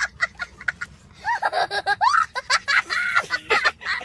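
A young child laughing hard: quick high-pitched bursts of laughter, then from about a second in longer laughs that glide up and down in pitch.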